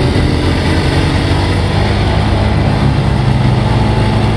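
Tuned Deutz 4006 tractor's air-cooled three-cylinder diesel running steadily under load while pulling a loaded silage wagon.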